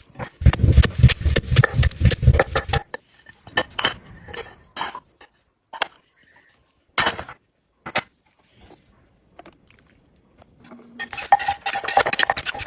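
Utensils clinking and knocking rapidly against a dish in two busy spells, one at the start and one near the end, with scattered single clicks between.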